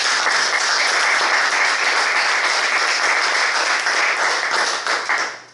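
Audience applauding: many people clapping in a dense, even patter that starts all at once and dies away near the end.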